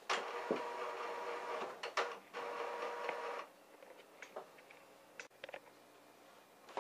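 Epson Stylus Photo PX650 inkjet printer's carriage motor whirring with a steady hum as it drives the print-head carriage to the cartridge replacement position. It runs for about three seconds with a brief dip near the two-second mark, then stops, leaving a few faint clicks.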